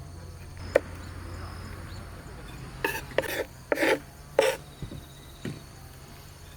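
Sharp knocks like chopping on wood: one about a second in, then four irregular strikes between about three and four and a half seconds, over a faint steady hum.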